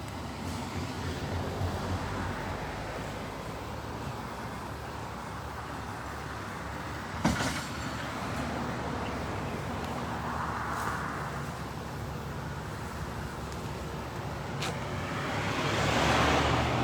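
Road traffic going past: vehicles swell by one after another over a steady low engine hum, with a single sharp click about seven seconds in.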